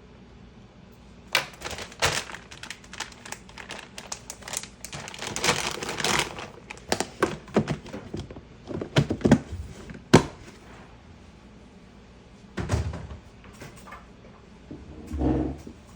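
Herbal-medicine ingredients and their containers being handled by hand during compounding: a busy run of clicks, rustling and clatter for most of the first ten seconds, then two dull thunks near the end.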